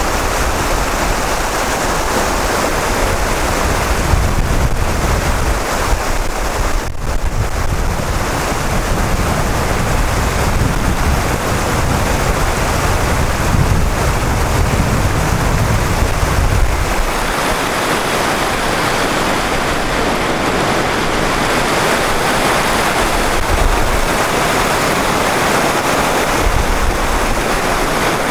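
Whitewater rapids of a river running high: a steady rush of water. Wind rumbles on the microphone and drops away about seventeen seconds in.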